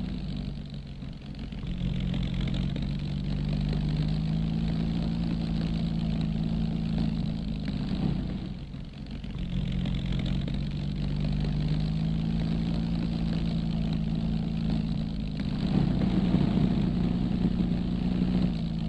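Piston aero engine of a light propeller aircraft running with a steady low drone. The drone dips and shifts in pitch briefly twice, about a second in and again around the middle.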